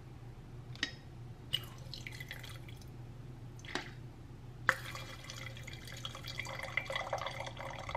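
A few short sharp clicks from a Coravin wine preserver, then from about halfway red wine trickles in a thin stream from its needle into a glass wine glass.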